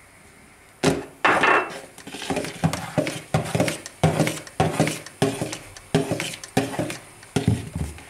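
Electric hand mixer's beaters knocking repeatedly against a plastic mixing bowl while working flour into whipped eggs: a dozen or so sharp knocks, about one every half second, starting about a second in.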